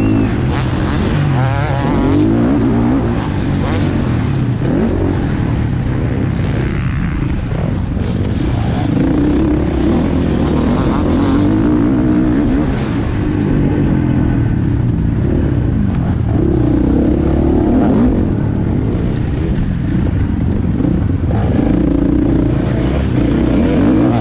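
Motocross bike engine ridden hard on the track, the revs rising and dropping again about five times as the rider opens and shuts the throttle.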